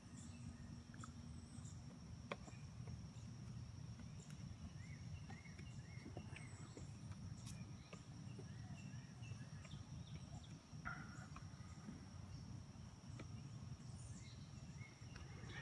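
Faint woodland ambience: a steady high-pitched insect drone with a few faint bird chirps over it.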